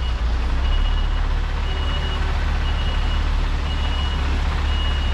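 Articulated lorry reversing, its reversing alarm beeping about once a second over the steady low rumble of its diesel engine.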